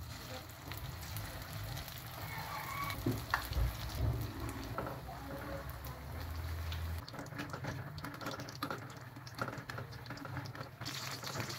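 Lumpia spring rolls deep-frying in hot oil in a pan, the oil sizzling with a dense, steady crackle.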